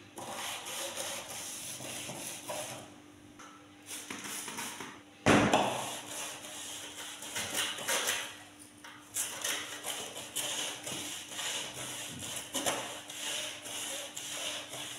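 A bristle brush scrubbing along an aluminum window frame and sill in uneven back-and-forth strokes. About five seconds in there is a single loud knock, the loudest sound.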